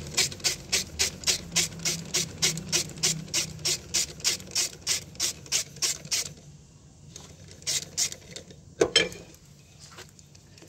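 Socket ratchet wrench clicking quickly and evenly, about four clicks a second for some six seconds, as the axle-shaft flange bolts on a truck's rear wheel hub are backed out. After a pause come a few separate clicks and one sharp metallic knock.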